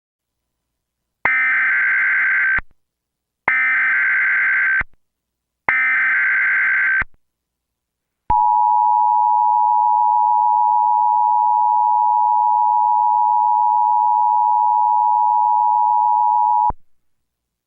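Emergency Alert System SAME header: three loud bursts of rapid digital data warble, each just over a second long, then a steady attention tone lasting about eight seconds. The sequence signals the start of a new emergency alert.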